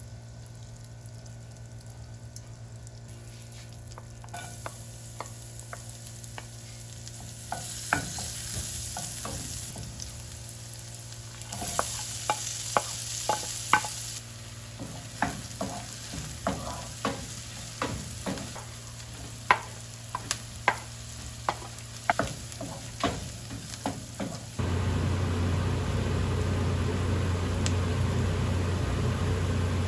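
Food frying in a pan: sizzling in two stretches, with a utensil stirring and knocking against the pan many times. Near the end the sound switches abruptly to a steady low hum.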